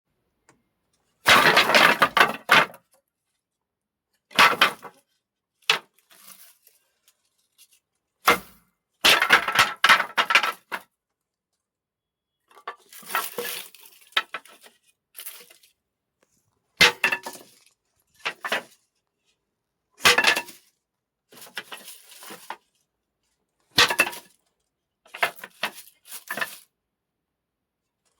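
Wooden sticks snapping and cracking, recorded for foley: about a dozen separate bursts of sharp cracks with short silences between, the longest and loudest bursts near the start and about nine seconds in.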